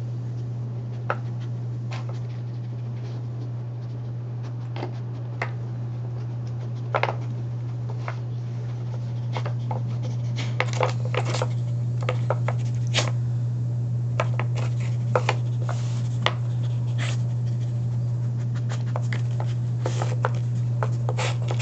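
Pieces of a Nina Ottosson Dog Fighter puzzle toy clicking and knocking as a dog noses and paws at them to find treats. The clicks are scattered at first and come more often in the second half, over a steady low hum.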